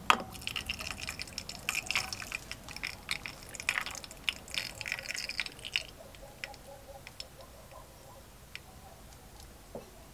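Torch-heated brass lure blank plunged into a mug of water: a sharp splash, then sizzling and crackling for about six seconds as it quenches, fading to a few faint ticks.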